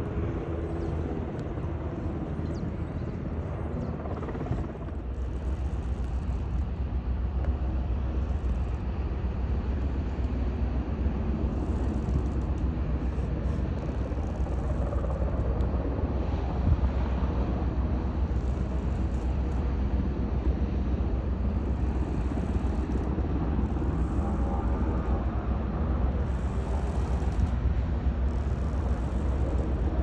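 Low, steady engine rumble of a large container ship passing close by, growing stronger about five seconds in.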